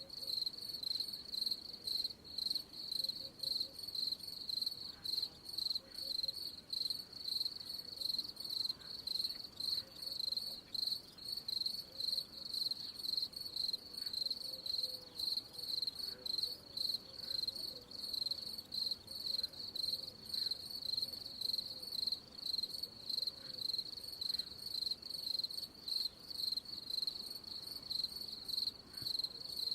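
Crickets chirping steadily, a high trill pulsing in a regular rhythm of about three chirps a second.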